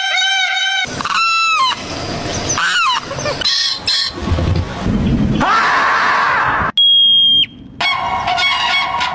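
A rapid series of different bird and animal calls spliced together with abrupt cuts: a fast run of repeated calls at the start, then several separate cries, and a steady high tone for under a second about seven seconds in.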